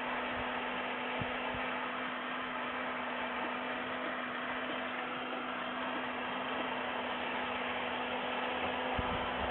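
Steady hiss of road and cabin noise with a constant electrical hum, as picked up by a dashcam inside a car moving in traffic.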